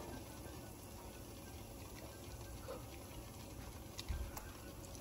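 Raw chicken pieces being dropped by hand into a stainless steel pot of near-boiling water: faint bubbling with small splashes and clicks, and a low thump about four seconds in.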